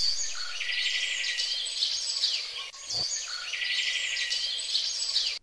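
Morning birdsong: several birds chirping and trilling in quick high notes. The same recorded passage plays twice back to back and cuts off abruptly at the end, as a looped sound effect.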